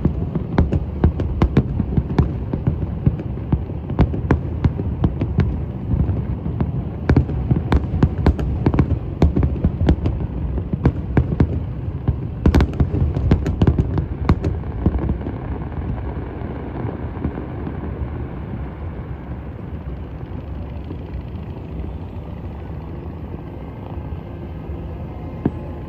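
Fireworks bursting overhead in quick succession, many sharp bangs and cracks over a low rumble for about fifteen seconds. The bangs then stop, leaving a steady low rumble.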